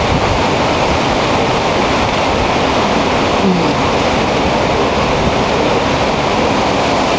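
Hurricane winds blowing hard and steadily through the trees: a loud, even rush of noise.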